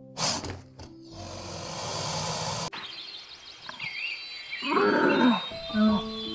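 An alpaca's call of nearly a second, its pitch rising then falling, about two-thirds of the way in, followed by a shorter call. Before it come a sharp burst and a couple of seconds of hissing that cut off suddenly, with birds chirping and soft background music underneath.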